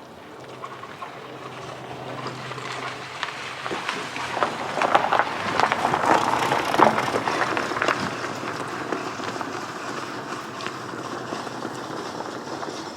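An engineless Honda Civic being pushed by hand and rolling over icy ground, its tyres crunching and crackling. The crunching builds to its loudest about halfway through, then eases to a steadier hiss.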